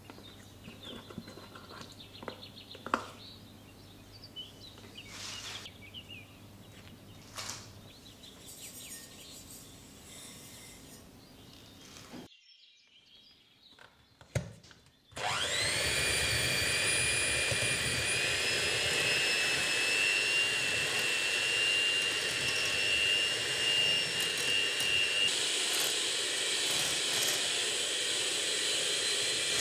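Electric hand mixer switching on about halfway through, its motor whining up to speed within a second and then running steadily with a high whine as the beaters work butter into sugar in a glass bowl. Before it, a few faint clicks and scrapes as soft butter is tipped from a plastic tub into the bowl.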